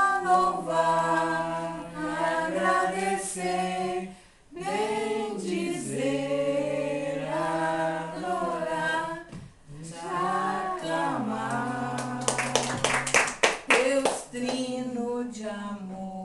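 A small group of voices singing a hymn unaccompanied, holding long notes that glide between pitches. About twelve seconds in, a quick run of hand claps joins the singing for a couple of seconds.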